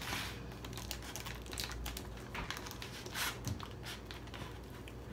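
Fingers working cold leftover sticky rice loose from a woven bamboo basket, where it is stuck. Soft, irregular crackles and rustles come from hands scraping the bamboo weave and tearing apart the clumped rice.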